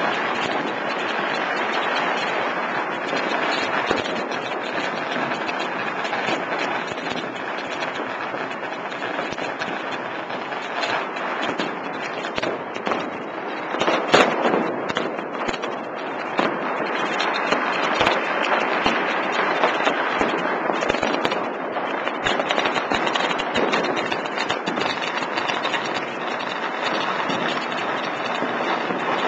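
Fireworks going off all around without a break: a dense crackle of many rapid bangs, loudest in a cluster about halfway through.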